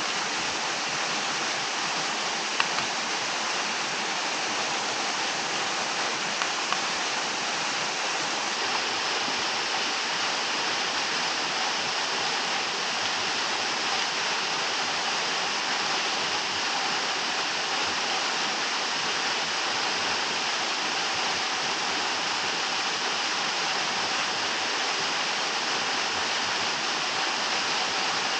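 Waterfall rushing: a steady, even hiss of falling water. A few brief clicks in the first seven seconds.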